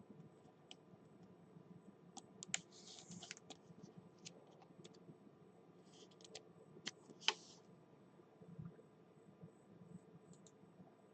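Faint, scattered clicks and taps with a couple of brief rustles: trading cards being handled.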